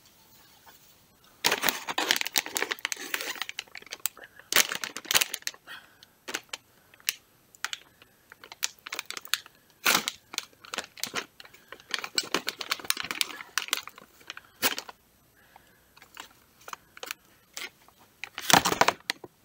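Plastic popcorn bag crinkling and rustling as it is handled, in irregular bursts that begin a second or so in, with the loudest burst near the end.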